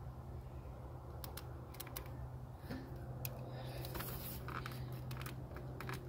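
Small plastic clicks and ticks of wire pin terminals being worked into a multi-pin wiring harness connector, coming in quick irregular runs from about a second in, over a steady low hum.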